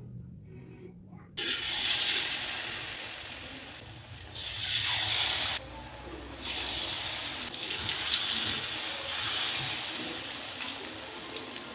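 Batter-coated tofu sizzling in hot oil in a wok: a loud hiss starts suddenly about a second and a half in as the first piece goes into the oil, and the frying sizzle carries on, dipping and swelling again as more pieces are added.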